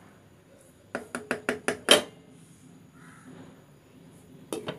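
A wooden spatula knocked about six times in quick succession against a metal cooking pan, the last knock the loudest, then a metal lid set down on the pan with two close clinks near the end.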